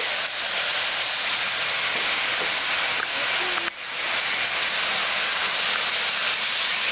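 Lionel Pennsylvania Flyer toy electric train running on its track: a steady rushing noise of the motor and wheels, with a brief dip about three and a half seconds in.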